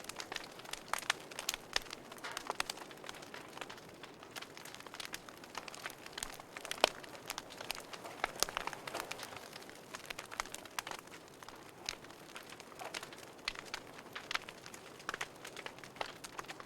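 Wood fire burning in a fireplace: irregular crackles and sharp pops over a soft steady hiss, with one louder pop about seven seconds in.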